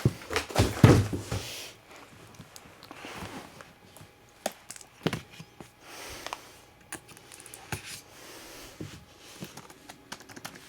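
Packaging being handled while a keyboard is unboxed: rustling and sliding, with scattered sharp clicks and knocks. The handling is loudest in the first two seconds.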